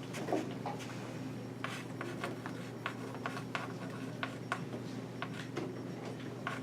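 Writing on paper: scattered short scratchy strokes and light taps at an irregular pace, over a steady low electrical hum.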